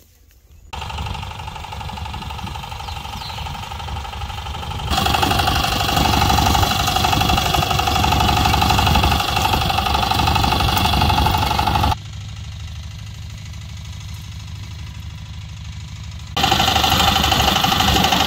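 Single-cylinder diesel engine of a two-wheel walk-behind power tiller running under load while tilling dry soil, a steady knocking beat. It gets suddenly louder and quieter several times.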